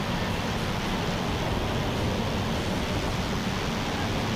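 Steady rush of airflow over a Cessna 208 Caravan in flight, with the constant drone of its PT6A turboprop and propeller underneath, the aircraft on approach to land.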